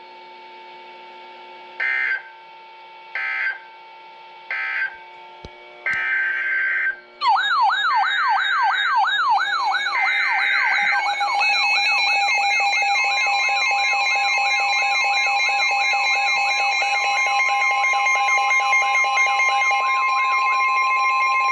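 Weather radio alert tones: three short SAME digital data bursts (the end-of-message code) are followed by three longer data bursts that carry the header of the next warning. About seven seconds in, a weather radio's fast warbling alarm starts, and a steady attention tone and other radios' alarm tones join it and sound together to the end.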